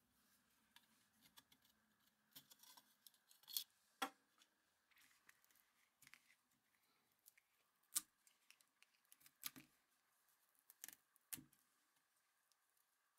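Faint snips and clicks of needle-nose pliers cutting and tugging at the cloth binding and lead wires of an electric motor's stator winding, a handful of short sharp clicks spread out with quiet between them.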